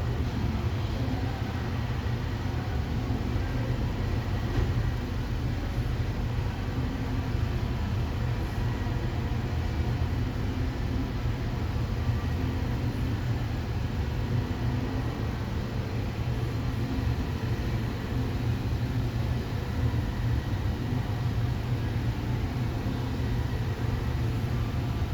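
Steady low mechanical hum with no breaks, carrying a few faint steady tones higher up.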